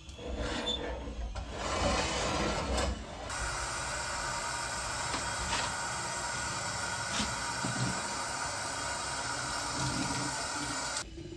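Rubbing and handling noises, then water running steadily for about eight seconds before cutting off suddenly.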